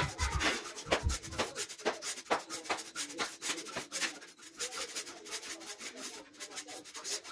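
Footsteps crunching on snow: a quick, steady run of crunches.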